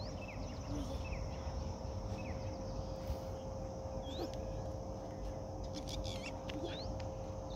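Small birds chirping, short falling calls scattered through, with a couple of rising whistles about four and seven seconds in, over a steady high hiss and a low rumble.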